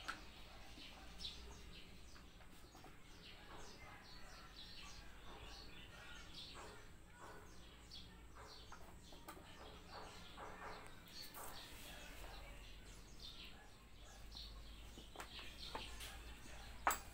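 Faint scuffling and light taps of two kittens play-fighting on a tiled floor and against a plastic fan base, with a sharper knock near the end.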